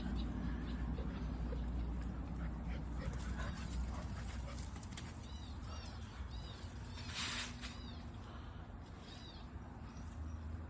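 German shepherd whimpering: several short, high-pitched whines in the second half, with a brief scratchy rustle about seven seconds in.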